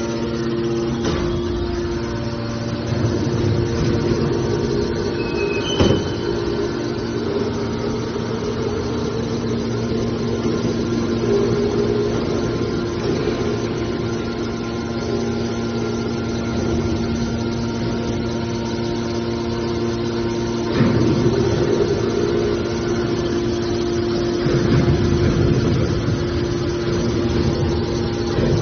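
Hydraulic scrap metal baler running: a steady machine hum with two held tones from its pump and motor, a sharp metallic clank about six seconds in, and heavier surges of pressing noise around twenty-one and twenty-five seconds.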